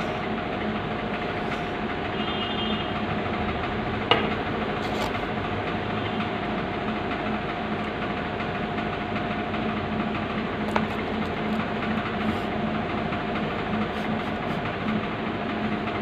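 A steady mechanical hum, like a motor running, with a sharp knock about four seconds in and a smaller one near eleven seconds.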